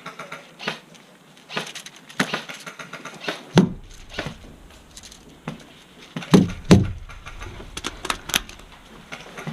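KWA VM4-A1 airsoft electric rifle firing single shots at a steady pace, a sharp click-crack roughly every half second to second, with a few dull low bumps in between.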